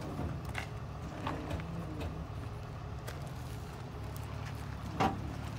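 A vehicle engine idling, a low steady hum, with a few faint clicks and a single knock about five seconds in.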